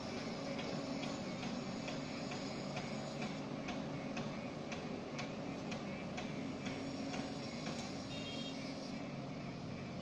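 JCB wheel loader's diesel engine running steadily, with a sharp, regular ticking about twice a second that stops near the end.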